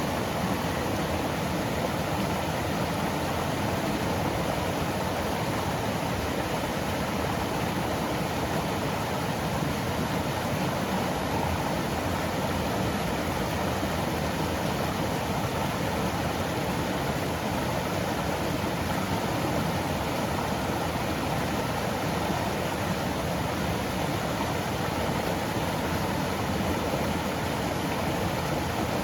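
Mountain stream flowing steadily over rocks and pebbles: an even, continuous rush of water.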